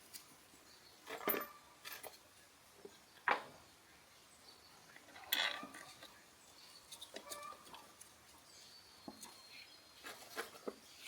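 Scattered light clinks and knocks of hand tools and small metal engine parts being handled, the two loudest a few seconds in.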